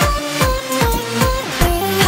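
Background electronic dance music with a steady kick-drum beat, about two and a half beats a second, under a stepping synth melody.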